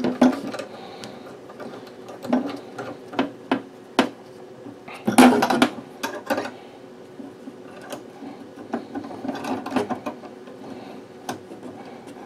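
Metal RF coaxial connectors and a small 10 dB attenuator handled and screwed together by hand: irregular clicks and scrapes of metal on metal, with a louder clatter about five seconds in, as the couplings are threaded on and tightened.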